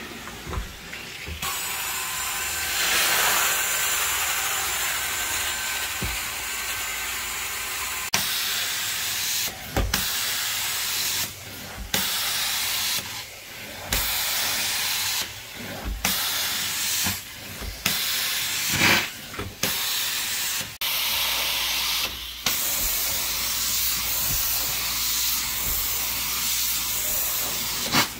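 Carpet extraction machine's wand and stair tool spraying water into the carpet and sucking it back up: a loud steady hiss of suction and spray. In the second half the hiss keeps breaking off for a moment every second or two.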